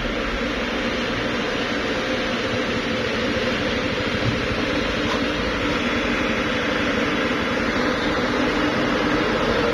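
Diesel engine of a Hino dump truck pulling up a muddy dirt slope, a steady engine drone that grows slowly louder as the truck comes closer.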